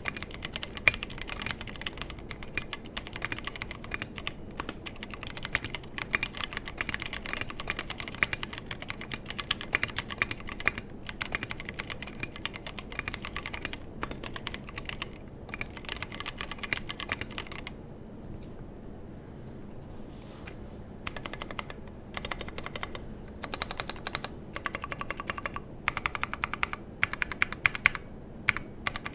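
Mechanical keyboard with stock Halo True tactile switches, a brass plate and SA-profile PBT keycaps, typed on steadily at speed, with no foam in the case. After a short pause about two-thirds of the way through, the modifier keys are pressed in repeated runs.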